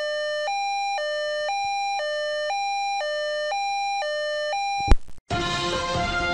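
A German-style two-tone emergency siren ("tatü-tata") switching between a lower and a higher tone every half second for about five seconds. It cuts off with a sharp, loud click, and after a short gap theme music starts.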